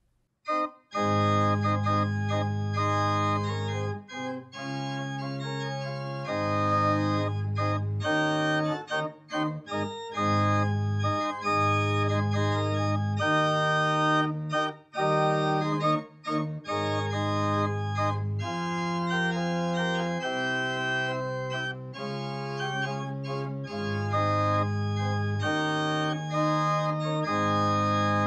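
Two-manual electronic church organ playing slow, held chords over a low bass line, starting about a second in.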